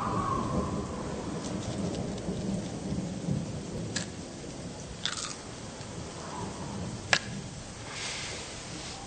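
Steady rain with a low rolling rumble of thunder that is strongest in the first few seconds. A few sharp clicks and a short rattle cut through it, the loudest about seven seconds in.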